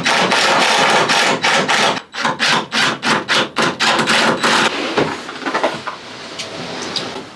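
Power drill running, then a quick series of about ten hammer blows on wood, roughly four a second, followed by a few quieter knocks near the end.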